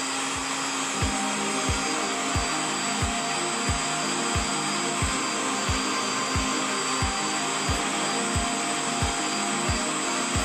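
Electric meat grinder with a sausage-stuffing attachment running steadily, its motor driving the meat-and-fat mix through the tube into hog casing. Background music with a low, steady beat plays under it.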